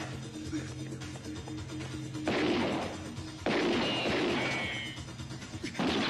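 Film soundtrack: tense background music under three sudden loud crashes, about two seconds in, three and a half seconds in, and again near the end, each dying away over a second or so.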